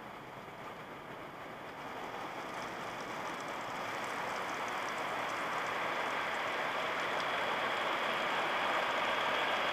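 Automatic car wash heard from inside the car: water spraying and streaming over the windshield and body as a steady hiss that grows gradually louder. Near the end a rotating wash brush reaches the windshield.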